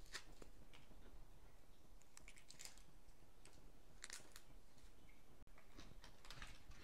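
Chef's knife dicing a red onion on a plastic cutting board: faint, irregular taps of the blade through the onion onto the board, coming in small clusters.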